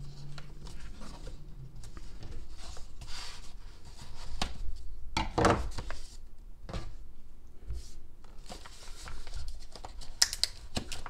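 Brown kraft-paper wrapping being handled and unfolded by hand: irregular rustling and crinkling of stiff paper, with a few louder crackles about halfway through and near the end.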